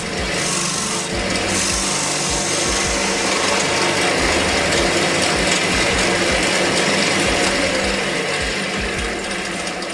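Wood lathe running, with a hand tool held against the spinning square bowl blank, scraping and rubbing at the wood in a steady rasping noise over the low motor hum.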